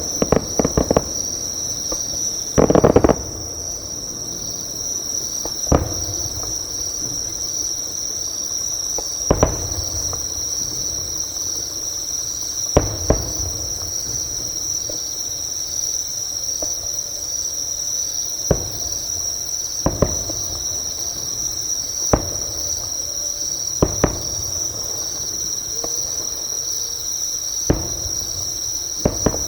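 Insects singing close by in a steady, continuous high-pitched trill, with distant fireworks bursting as dull booms every few seconds; a quick cluster of bursts about three seconds in is the loudest.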